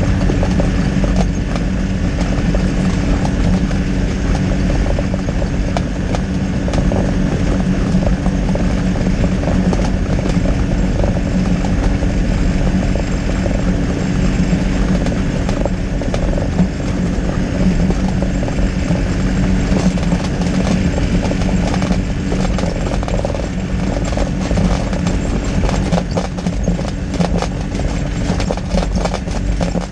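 Skyranger microlight's engine and propeller running steadily at low power while taxiing on a grass strip, with the light airframe knocking and rattling over the bumpy ground, more in the last few seconds.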